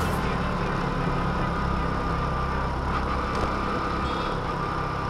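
Motorcycle engine running steadily while riding in city traffic, with a low, even engine note and road noise.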